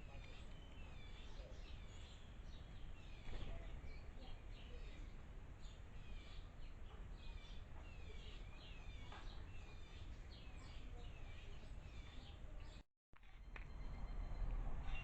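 Small birds chirping, many short falling chirps in quick succession over steady outdoor background noise. The sound drops out completely for a moment near the end, then the background returns louder.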